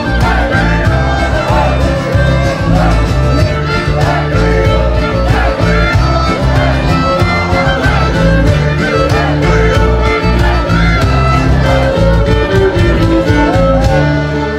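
A folk band playing live: fiddles lead an instrumental passage over accordion, guitar and cajón with a steady beat. A falling run of notes comes near the end.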